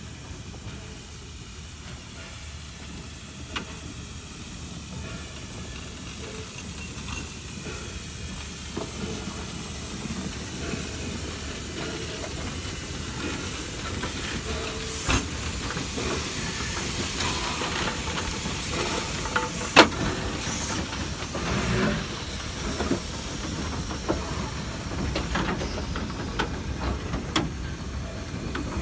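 Steam locomotive moving slowly and passing close by, its steam hissing steadily and growing louder as it nears. A few sharp knocks and clanks sound over the hiss, the loudest about two-thirds of the way through.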